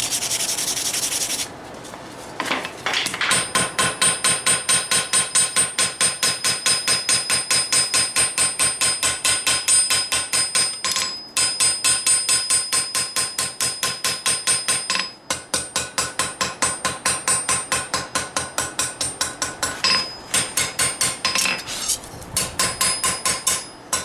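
A brief scraping noise, then a hand hammer striking a hot steel knife blade on an anvil in a fast, even rhythm of about four blows a second, each blow ringing, with a few short pauses. The blows are forging the edge bevel into the blade.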